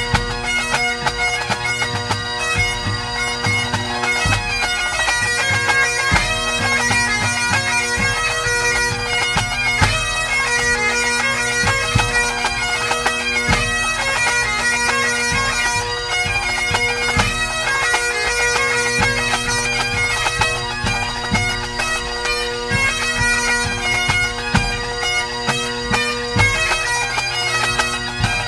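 Pipe band playing a competition medley: Great Highland bagpipes, the chanter melody running over steady drones, with the band's drums.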